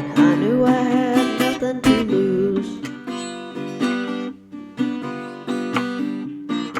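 Blues on acoustic guitar, with no singing: bent and sliding notes for the first two or three seconds, then a steady rhythm of picked chords.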